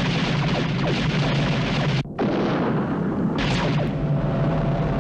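Science-fiction space-battle sound effects: a dense, continuous rumble of blasts and ship engines as Cylon raiders attack. It cuts out for a moment about two seconds in, then comes back with falling-pitch whooshes of raiders flying past, and a hiss joins near the end.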